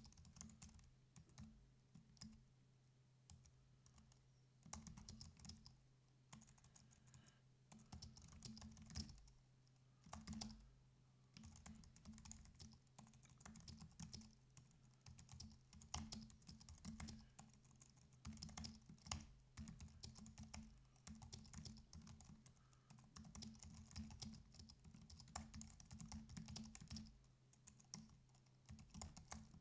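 Faint typing on a computer keyboard: quick runs of keystrokes broken by short pauses, over a steady low electrical hum.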